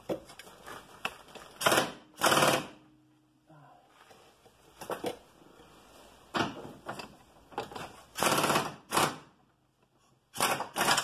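Pneumatic impact wrench with an E18 Torx socket rattling in several short bursts as it breaks loose and spins out a control-arm bolt, with light metal clinks of tools between the bursts.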